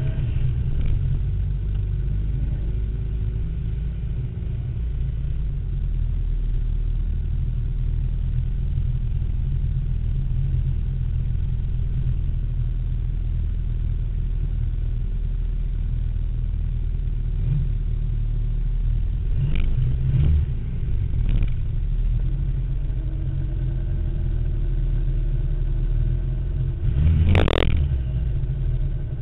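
Turbocharged Honda D16Z single-cam VTEC four-cylinder running at idle with a steady low rumble, heard from inside the car's cabin while it rolls slowly. A few short sharp sounds come about twenty seconds in, and a loud burst near the end is the loudest moment.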